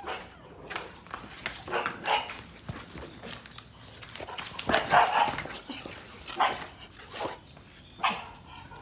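English bulldog barking: about ten short barks spread unevenly, with the loudest cluster about five seconds in.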